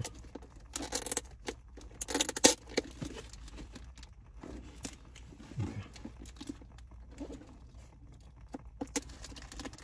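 Packing tape being ripped off a cardboard shipping box, with two loud tearing bursts about one and two and a half seconds in, then quieter rustling and crinkling of the peeled tape and plastic, with a few small clicks.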